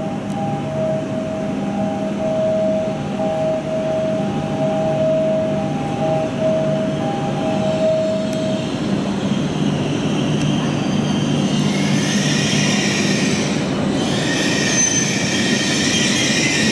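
E7 series Shinkansen train moving slowly into the station platform with a steady low hum. A repeating two-note electronic beep sounds through the first half, and from about two-thirds of the way in a high-pitched, several-toned squeal rises as the train slows.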